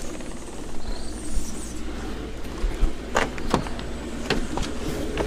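Car moving, heard from inside the cabin: a steady low engine and road rumble, with a few sharp knocks or rattles about three seconds in and near the end.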